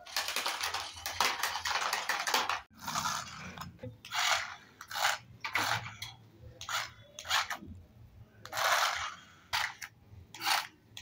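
Repeated short scraping and rubbing sounds, a small toy electric car's plastic wheels scraping over a hard floor as it starts and stops. There is a longer stretch of scraping for the first few seconds, then about a dozen brief scrapes.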